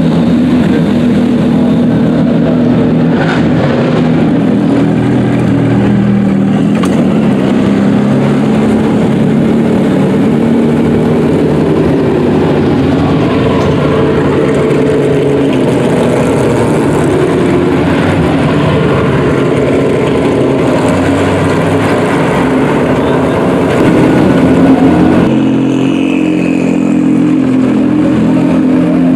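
Race car engines running in the paddock, mostly a steady idle with small changes in pitch. Near the end the sound switches abruptly to a different engine note.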